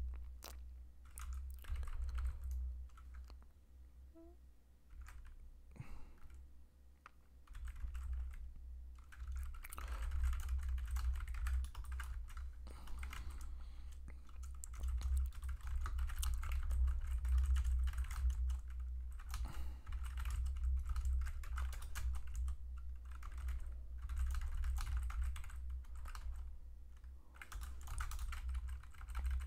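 Typing on a computer keyboard: runs of rapid keystroke clicks, with a quieter lull about four to seven seconds in.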